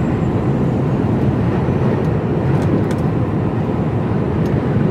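Steady running noise inside an HGV lorry's cab at road speed: the diesel engine's drone mixed with tyre and road noise.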